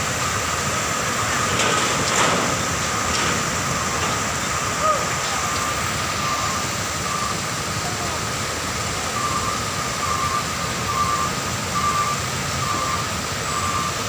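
Floodwater pouring over the edge of a road and cascading down a concrete embankment: a steady rush of water.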